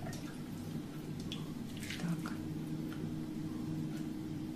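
Faint, soft splashes and drips of borscht being ladled from a tureen into a plate, over a steady low hum.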